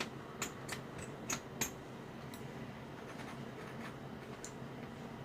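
Short, sharp scrapes of a tool scratching corrosion off the remote control's circuit board, several in quick succession in the first two seconds, then a few sparser ones.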